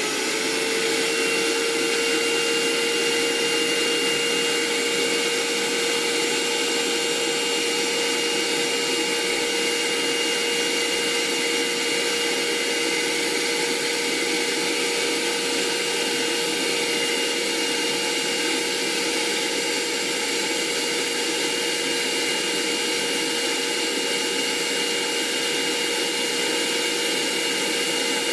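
Vacuum motor of a dental vacuum thermoforming machine running steadily with a high whine, coming up to speed at the start. It is sucking the heated dual-laminate sheet down over the dental model to form a bruxism splint.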